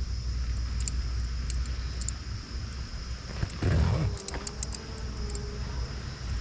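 Wind rumbling on the microphone, with scattered light metallic clicks from tent stakes and the rainfly's corner fittings being handled, clustered a little past halfway. A dull thump just before that is the loudest sound.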